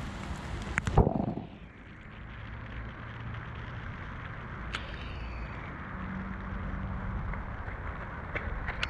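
Outdoor microphone noise, wind-like and steady, with one loud thump on the microphone about a second in, after which the sound turns duller. A few faint clicks near the end.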